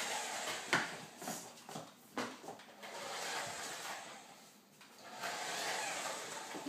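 Small electric motor of a toy remote-control car whirring as it drives across a tile floor. The sound swells and fades about three times, with a few sharp clicks.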